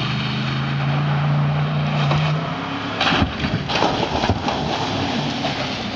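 A pickup truck's engine runs with a steady tone. About three seconds in it gives way to rough rushing noise with several knocks as the truck splashes hard through mud.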